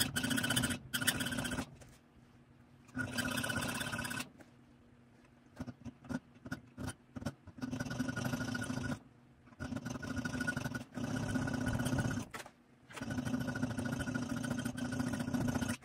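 Small electric rotary tool running in repeated bursts of one to three seconds with short pauses and a few quick blips in the middle, grinding gut hooks into a knife blade.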